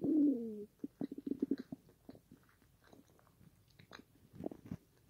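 A person chewing a mouthful of pizza with mouth closed, close to the microphone: small smacks and clicks, with a quick run of chewing pulses about a second in. It opens with a short hum that falls in pitch.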